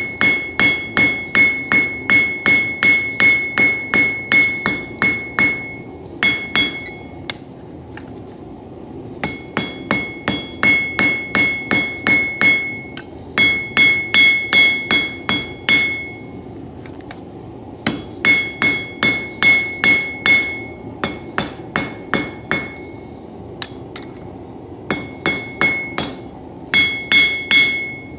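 Cross-peen hammer striking hot coil-spring steel on an anvil to spread it, in runs of quick blows about three a second with short pauses between runs. Each blow leaves a high ringing from the anvil.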